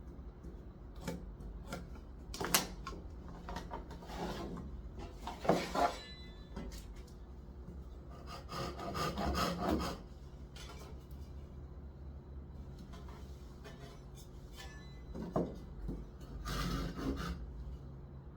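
Hand tools working wood: irregular scraping and rubbing strokes on timber, the longest lasting about two seconds near the middle, with a few sharp knocks between them.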